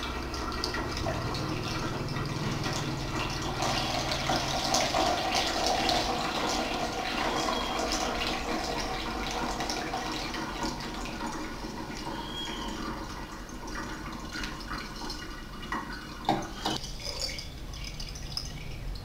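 Green spent nitric-acid solution being decanted from a glass jar into a paper coffee filter, trickling and dripping through into a plastic measuring jug as the solution is drawn off the gold. A few sharp knocks near the end.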